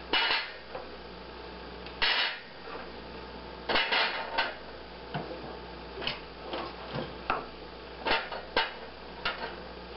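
Raw chestnuts being set down one by one on a toaster oven's metal wire rack: irregular light clicks and knocks of shell against metal, about a dozen over the span.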